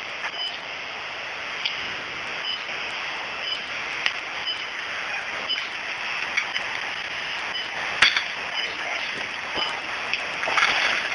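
Apartment building fire burning, scattered sharp pops and cracks over a steady rushing background. A faint high beep repeats about once a second.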